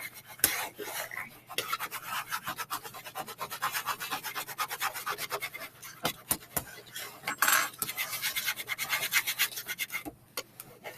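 A hard flat edge scraped quickly back and forth over clear transfer tape laid on vinyl, smoothing it down and pressing out air bubbles, in many quick rasping strokes that pause briefly near the end.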